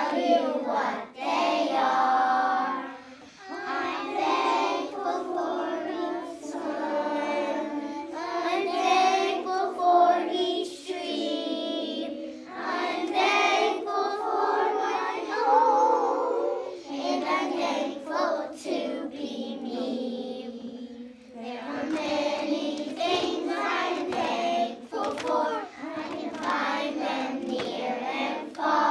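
A class of kindergarten children singing a song together.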